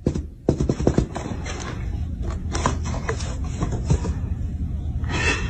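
A hand tapping and scratching on a cardboard box: a few sharp knocks in the first second, then lighter scratches and taps over a low steady hum, with a short hissy burst about five seconds in.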